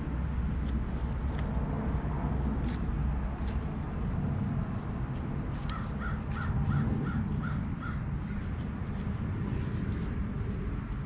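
A bird calls six times in quick succession, about three calls a second, over a steady low rumble.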